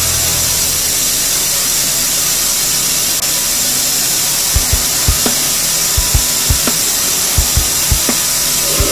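Belt grinder's abrasive belt grinding the steel of a 440C stainless knife blank, a steady loud hiss as the blade is pressed to the belt and sparks fly. Background music with a low beat comes in about halfway.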